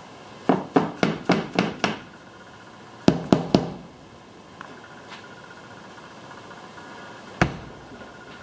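Hammer tapping aluminium channel trim down onto VHB double-sided tape to seat it: a quick run of six sharp blows, three more about a second later, and a single blow near the end.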